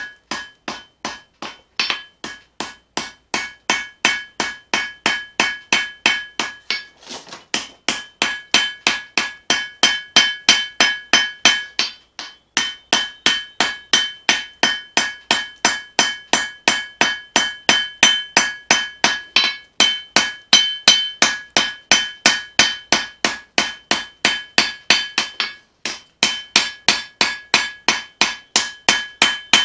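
Hammer blows forging leaf-spring steel on an anvil, a fast steady rhythm of about three strikes a second. Each blow leaves a bright metallic ring, and the hammering pauses briefly a few times.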